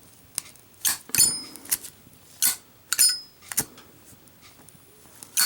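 Zippo lighter with a chrome-plated brass case and steel insert, its lid flipped open and snapped shut repeatedly: a string of sharp metallic clicks, two of them with a short high ringing clink.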